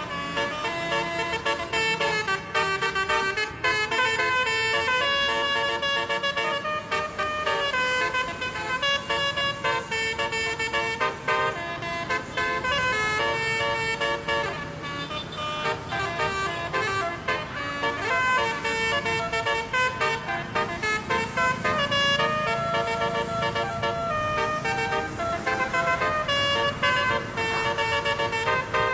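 Bus 'telolet' horn, a multi-tone musical horn, playing a continuous melody of held notes that change pitch in steps.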